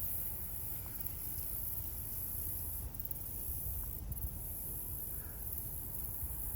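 Steady high-pitched insect chorus of summer crickets or similar insects, over a constant low rumble.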